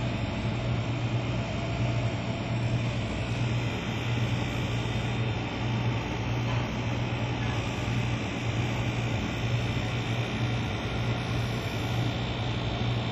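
Steady low mechanical hum of a running machine over a constant background noise, wavering slightly in strength.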